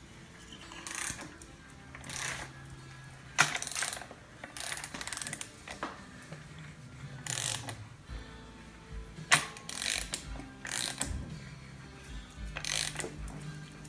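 Socket ratchet clicking in about eight short strokes, spaced unevenly, as the engine is turned over by hand so the rocker arms wipe across the cam lobes for a swipe-pattern check.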